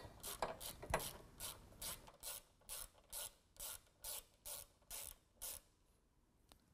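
Hand ratchet with a T25 Torx bit clicking in short, even strokes, about two a second, as it backs out a screw. The clicking stops about five and a half seconds in.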